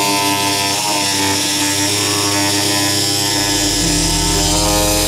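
Jigsaw running steadily as it cuts through a thin piece of wood.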